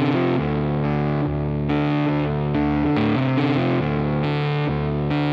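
Background music: distorted electric guitar playing steady chords.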